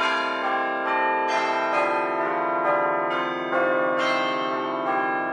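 Background music of bell-like chiming notes, held and overlapping, with new notes entering every second or so.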